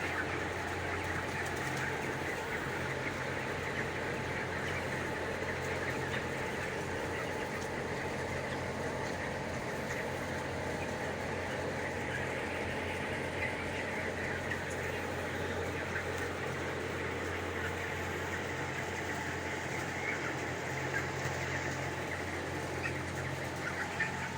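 Continuous dense chatter of a flock of chicks and broiler chickens over a steady low machine hum.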